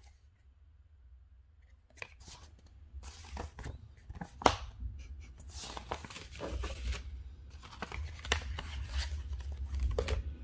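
Paper cards and a glossy brochure being handled and shuffled: irregular rustling and crinkling that starts about two seconds in, loudest about halfway through, over a low handling rumble.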